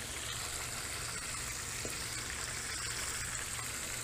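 Bream frying in hot oil in a frying pan on a propane camping stove: a steady sizzle with a few faint crackles.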